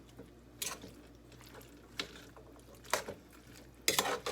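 A spoon stirring chunky tomato-and-bean soup in a pot: four short wet squelches and scrapes, the last the loudest.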